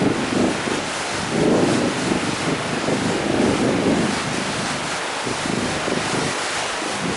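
Fast river rushing over rapids, a steady roar of water, with wind buffeting the microphone in irregular gusts.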